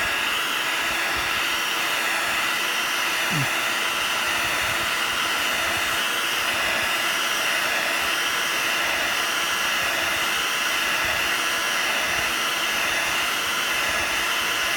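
Heat gun blowing steadily, a constant rushing hiss with a slight slow waver, as it heats a phone's glass to soften the adhesive holding it to the LCD.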